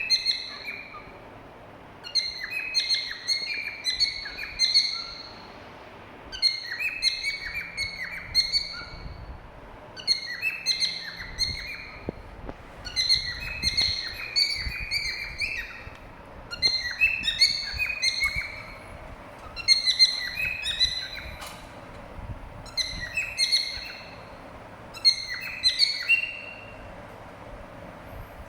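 Cockatiel whistling and chirping, a short phrase of quick high notes repeated over and over with brief pauses between phrases.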